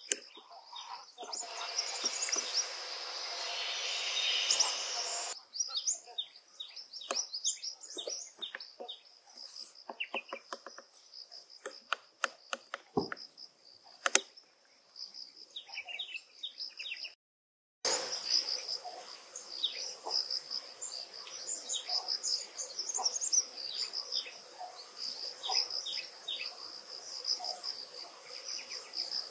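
Forest ambience: many small birds chirping in short, high calls over a steady, high-pitched insect drone. The audio drops out for about a second a little past the middle.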